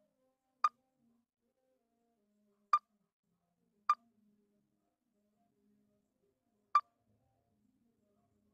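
Four short, sharp electronic blips from a phone, unevenly spaced: about a second in, twice around three to four seconds, and near seven seconds, over near silence.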